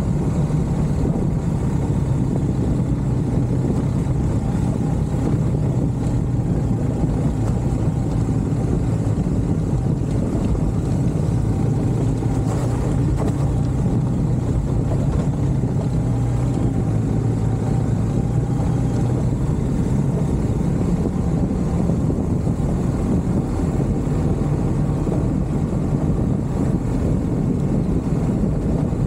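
Steady running noise of a moving vehicle, a low even rumble with some wind noise and no change in pitch.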